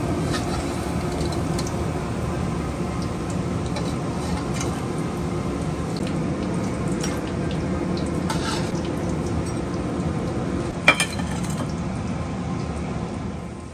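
Corn fritters deep-frying in hot oil in a wok: a steady sizzle, with a single sharp clink of crockery about eleven seconds in.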